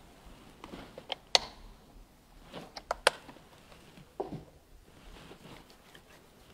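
A scattering of sharp clinks and small knocks as altar vessels (cruets, lavabo dish) are handled and set down after the priest's hand-washing at the offertory; the two loudest clinks come about a second and a half and three seconds in.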